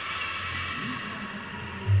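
Background music playing, fading out over the first second and a half, with a short low thud near the end.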